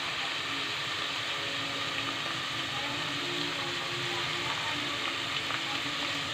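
Ground meat frying in hot oil in an aluminium pot, a steady sizzle, stirred now and then with a metal ladle. This is the sauté (gisa) stage of cooking.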